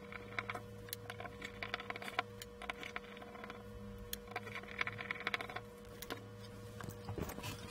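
A small screwdriver turns out the tiny cross-head screws from the cover plate of an optical filter block, making light scraping and scattered small metal clicks. A steady low hum runs underneath.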